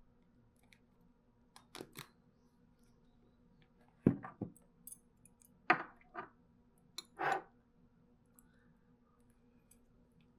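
A few separate light clicks and knocks, mostly in pairs, over a low steady room hum: small objects being handled and set down.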